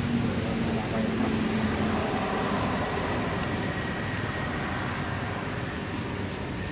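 Steady road traffic noise, with a vehicle engine's low hum standing out for the first two seconds.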